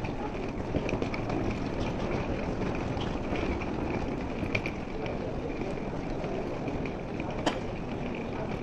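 Wheeled suitcases rolling over a stone-tiled floor, with footsteps: a steady noise with occasional clicks, the sharpest about seven and a half seconds in.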